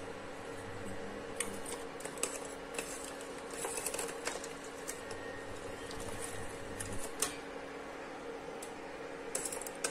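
Metal spoon stirring tamarind water and lumps of jaggery in a steel pan to dissolve the jaggery, the spoon making scattered light clicks against the pan over a steady low hum.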